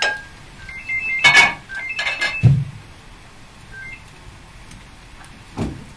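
Kitchen utensils and a stainless saucepan clinking and clattering against dishes as cherry sauce is poured out and served, with short ringing clinks about one to two and a half seconds in, a dull thud about two and a half seconds in, and another knock near the end.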